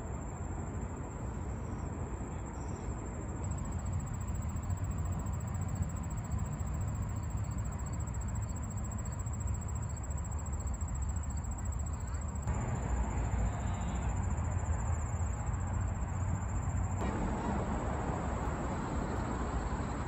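Outdoor ambience: a steady low rumble with a thin steady high tone over it. The background changes abruptly twice, about two-thirds of the way through and again near the end.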